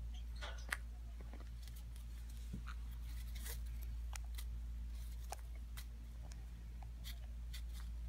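Faint scattered clicks and rustles from a pineapple green-cheeked conure shifting and fanning its feathers on its perch, over a steady low hum.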